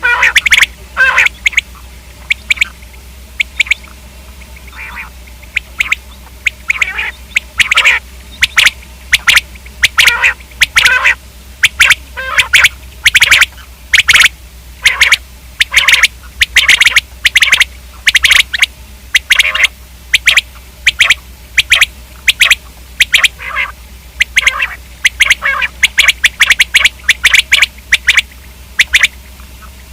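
Common quail calling over and over: short, sharp, loud notes in quick clusters, with brief pauses between the bursts.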